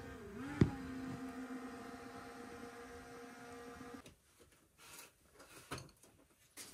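A small electric motor running with a steady hum. It dips briefly in pitch with a sharp click near the start, then switches off abruptly about four seconds in, followed by a few faint clicks and knocks.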